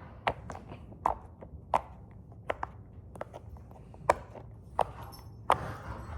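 Silicone pop-it (poppet) fidget bubbles being pressed, giving about a dozen sharp, irregularly spaced pops.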